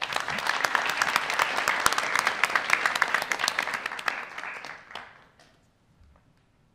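Room of people applauding, starting suddenly and dying away after about five seconds.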